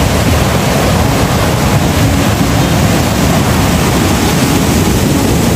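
Ocean surf breaking on the shore: a steady, loud rush of waves.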